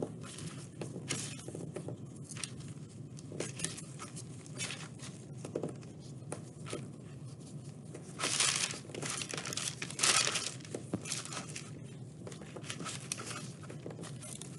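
Gloved hands rolling small paint-covered pieces of oven-bake polymer clay around on a sheet of paper: irregular crinkling and rustling of the paper and gloves, with louder bursts about eight and ten seconds in.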